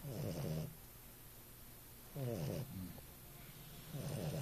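Bulldog puppy snoring in her sleep: three snores about two seconds apart, the last beginning near the end.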